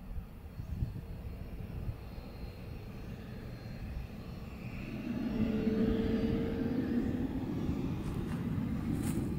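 Cessna Citation M2 business jet's twin turbofans running at taxi power as the jet turns on the runway: a steady rumble with a faint high whine, growing louder about halfway through as the tail and exhausts swing toward the listener.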